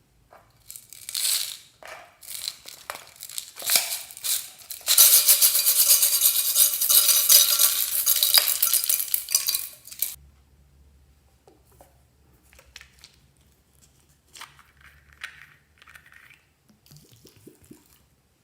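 Clinking and rattling of containers and utensils, then about five seconds of loud, dense rushing noise that cuts off suddenly, followed by faint scattered handling sounds.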